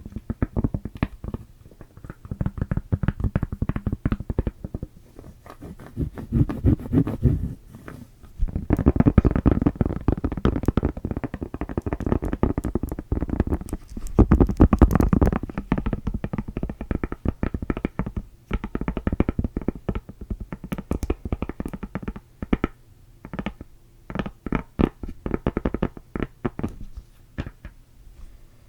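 Fast, wet ASMR mouth sounds close to a microphone: rapid clicks and smacks in bursts, with short pauses between runs.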